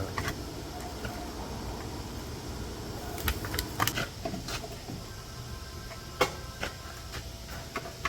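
Scattered sharp clicks and knocks of exhaust parts and hardware being handled and fitted: a cluster about three to four seconds in and the loudest single knock about six seconds in, over a steady low hum.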